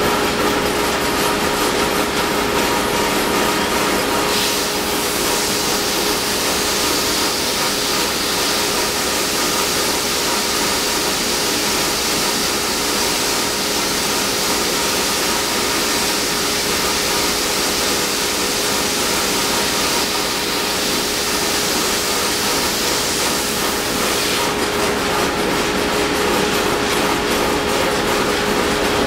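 Hawk 3-in-1 WoodPlaner running as a drum sander with 120-grit paper, a steady machine hum underneath, while a Sitka spruce guitar top plate is fed through and sanded thinner. The sanding hiss changes about four seconds in and changes back about twenty-four seconds in, while the plate is passing under the drum.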